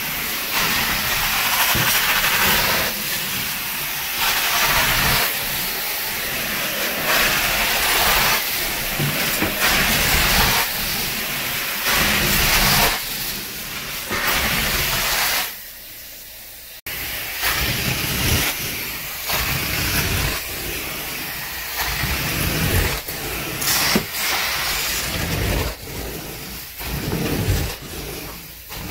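Carpet-cleaning extraction wand rushing with suction as it is pushed and pulled across carpet. The hiss swells and fades with each stroke. It drops away for about a second a little past halfway, then comes back abruptly.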